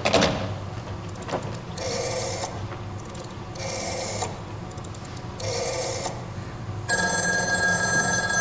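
Telephone ringing on the line, played as a stage sound effect: a few clicks, then three short rings about two seconds apart. About seven seconds in, a longer, steadier ring begins.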